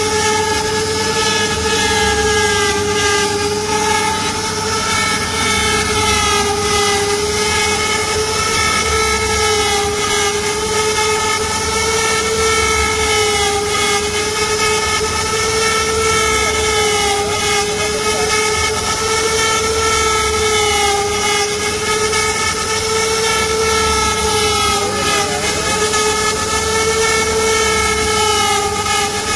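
CNC router spindle whining steadily as its bit carves into a wooden panel, one high tone with overtones over a hiss of cutting noise, the pitch wavering slightly.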